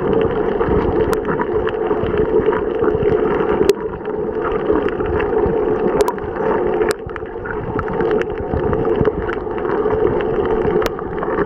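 Muffled underwater noise from a camera held below the surface: a steady rush of moving water against the housing, with a few sharp clicks scattered through it.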